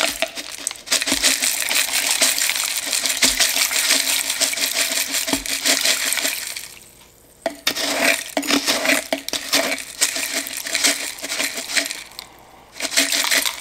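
Potassium hydroxide lye flakes pouring from a plastic bottle into a plastic cup of water: a dense rattling patter of many small clicks, pausing briefly twice as the pour slows.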